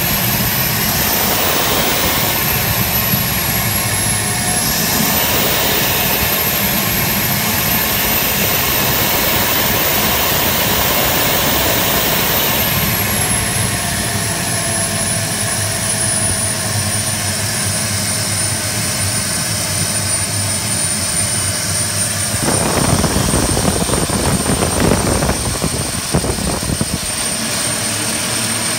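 Stuttgart Engineering STV 130 small turboprop engine running, its high turbine whine rising and falling as the throttle is opened and closed a few times, held high for several seconds, then settling to a steady lower pitch. A louder rushing noise swells for a few seconds near the end.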